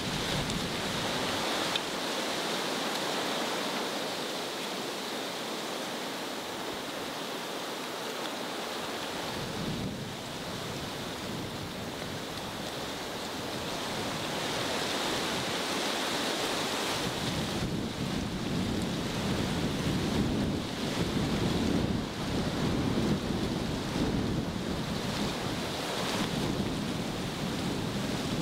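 Wind blowing steadily through brush and grass, with gusts buffeting the microphone from about halfway through.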